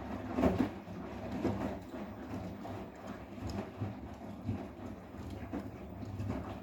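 Arçelik 10121 front-loading washing machine tumbling a heavy sofa cover. Dull thuds about once a second over the low hum of the drum turning.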